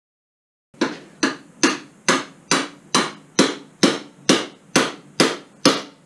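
Hammer blows on a mountain-bike fork's steerer tube: twelve even, loud strikes a little over two a second, each ringing briefly.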